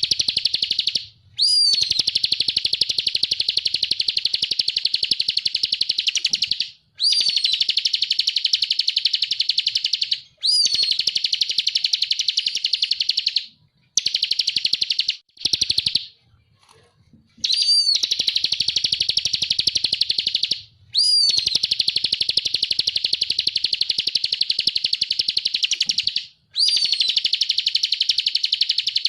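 Bar-winged prinia (ciblek kristal) singing long, loud phrases of a rapid high trill, each several seconds long and opening with a rising note. Short breaks separate the phrases, with a longer pause about halfway through.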